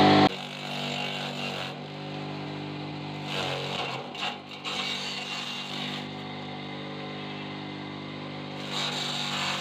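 Small electric forage chopper running with a steady motor hum. About three and a half seconds in, the pitch sags briefly as a bundle of leaves is fed in and shredded, then recovers.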